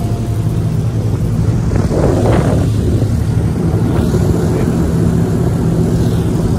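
Boat motor running steadily with a low, even drone, and a brief louder noisy swell about two seconds in.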